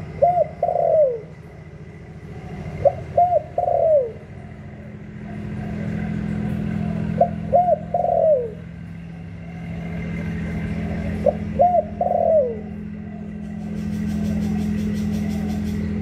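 A spotted dove cooing: four phrases about three to four seconds apart, each a few quick short coos ending in a longer falling note. A steady low drone runs underneath and grows louder partway through.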